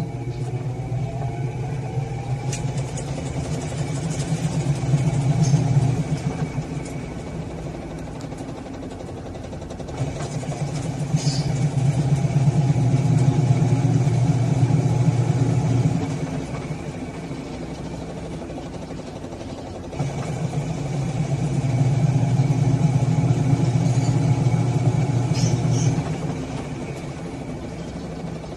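Sharp ES-FA650P automatic washing machine's motor spinning the tub in pulses. The motor hums and speeds up for about six seconds, then cuts out and the tub coasts for about four seconds; this happens three times. This is the intermittent start of a spin-only cycle.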